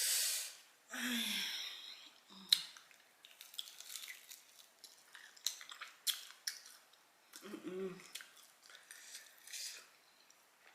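A person eating very spicy chicken: a hissing breath through the mouth at the start, then quiet chewing with many wet mouth clicks, broken by short low groans about a second in and again near eight seconds, as the hot sauce burns her mouth.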